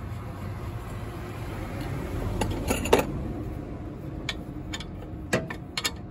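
Light metallic clinks of a hand tool and small fittings being worked, a cluster about halfway through and a few single sharp ticks after, over a steady low hum.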